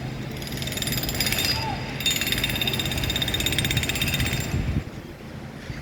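Jackhammer hammering rapidly on a construction site, stopping suddenly near the end.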